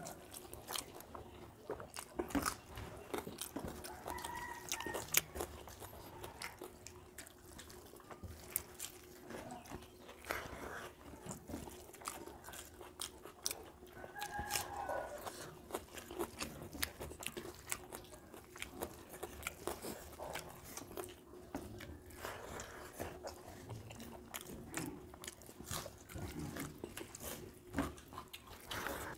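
Two people eating rice with shrimp curry by hand: chewing and mouth sounds, with fingers mixing rice on steel plates, in a continual run of small clicks.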